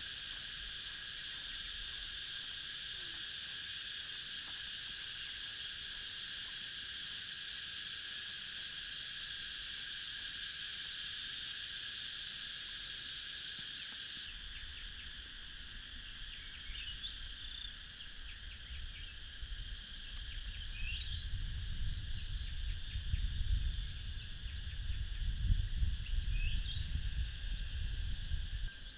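Steady insect chorus holding two high, even tones. About halfway it thins, a few short rising bird chirps come through, and a low gusty rumble builds toward the end.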